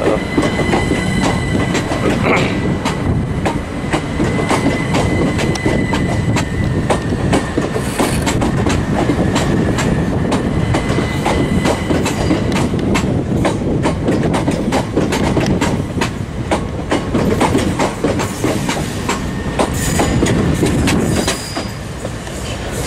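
Southern Class 377 Electrostar electric multiple unit running slowly past, its wheels clicking steadily over the rail joints. A thin high tone sounds over the first several seconds.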